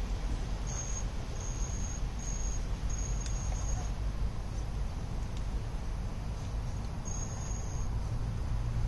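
Steady low rumble, with a cricket's high, even-pitched trill starting and stopping in short spells several times.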